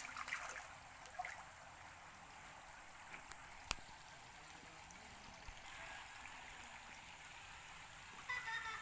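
Faint steady trickle of running water, with one sharp click a little before the middle.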